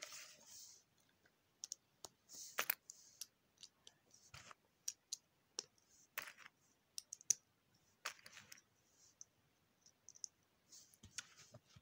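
Lego plastic bricks clicking and tapping as they are handled and pressed together, a faint, irregular run of small clicks.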